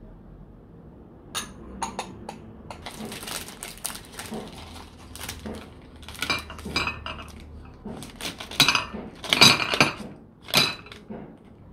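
Ceramic tableware clinking, then a thin plastic chocolate tray crinkling as it is handled and chocolates clattering out onto a ceramic saucer, loudest in a few bursts near the end.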